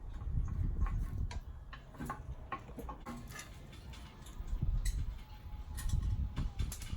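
Hand tools working bolts on an engine: a run of quick, irregular clicks and light metal clinks.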